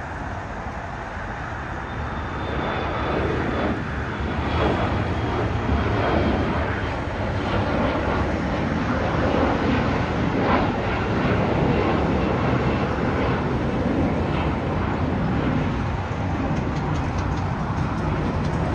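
Twin turbofan engines of an Embraer E-Jet regional jet running at takeoff power as it climbs out: a steady rumbling roar that swells a few seconds in and stays loud, with a faint high whine slowly falling in pitch.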